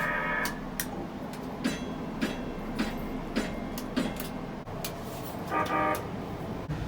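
Nippon Sharyo P865 light-rail car's quacker horn giving short blasts, one ending about half a second in and another near the end. Between them comes a run of sharp ticks, about two a second.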